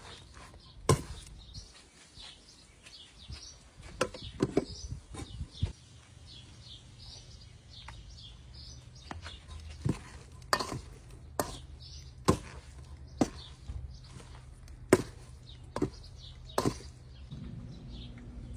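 Metal tongs clinking and knocking against a stainless steel mixing bowl while chicken tenders are tossed in cornstarch: a dozen or so sharp separate clinks at uneven intervals. Birds chirp in the background.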